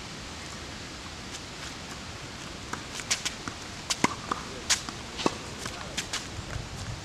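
A steady hiss, then from about three seconds in a quick run of sharp knocks: a tennis ball struck by rackets and bouncing on the court, mixed with footsteps during a rally.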